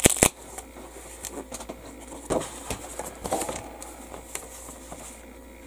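Foam packing wrap around a plastic model-kit sprue being slit with a hobby knife and pulled open. A few sharp clicks near the start are followed by soft rustling and crinkling with scattered small clicks.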